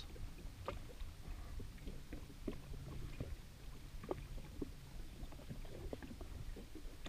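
Small waves lapping against the hull of an anchored jet ski, with its engine off: irregular light slaps and ticks over a low, steady rumble.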